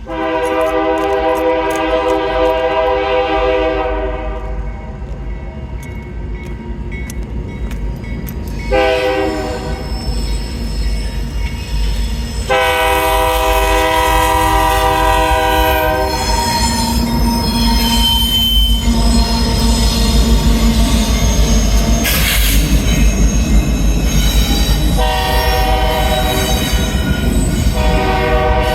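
Air horn of a GE diesel locomotive leading a freight train, sounding a series of blasts: a long one, a short one, another long one, and a final long one near the end. Beneath the horn runs the loud, steady rumble of the locomotive and train.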